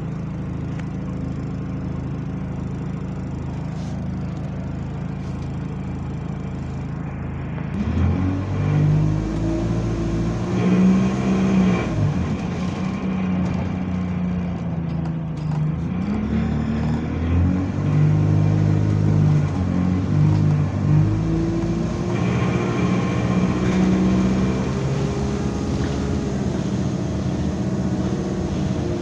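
A single-deck bus's diesel engine heard from inside the saloon. It idles steadily, then about eight seconds in it pulls away and accelerates with a moany drone whose pitch climbs and drops back at each gear change. The uploader puts the sound down to a burst turbo.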